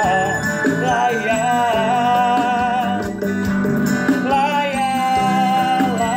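Man singing a wordless, vibrato-laden melody over strummed chords on a Marquês guitar.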